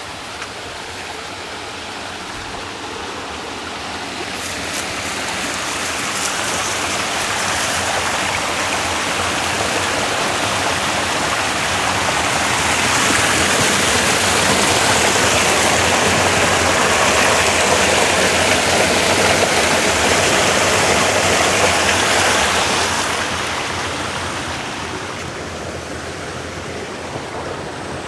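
Water rushing and splashing down a small waterfall in a concrete canal channel, a steady white-water noise that grows louder over the first dozen seconds and eases off after about 23 seconds.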